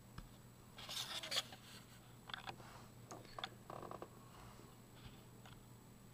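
Short, faint rubbing and scraping sounds close to the microphone, several in a row between about one and four seconds in, over a steady low hum.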